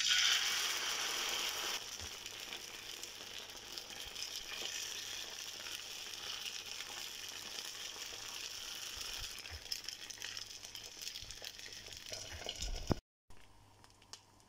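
Dosa batter sizzling on a hot iron tawa. It is loudest for the first two seconds as the batter is poured from a ladle onto the pan, then settles into a steady sizzle while the ladle spreads it thin. A sharp click comes just before it cuts off briefly near the end, and a fainter sizzle follows.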